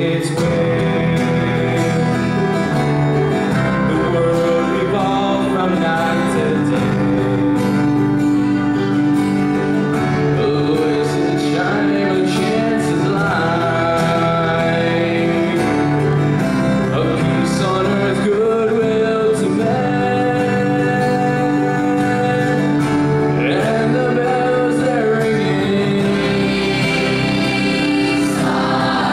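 Young male voices singing a Christmas song, accompanied by strummed acoustic guitar, electric bass and keyboard.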